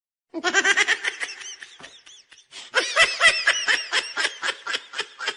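High-pitched cartoonish laughter, a rapid run of giggling 'ha-ha' pulses in two bouts with a short break about two seconds in.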